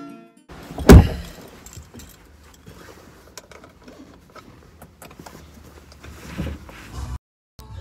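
Inside a car: one loud thump about a second in, then keys jingling with small clicks and rustling over a low rumble, and a softer thump near the end.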